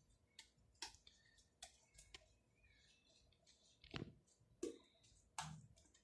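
Homemade glue-based slime being kneaded between the hands, giving faint, irregular sticky clicks and pops.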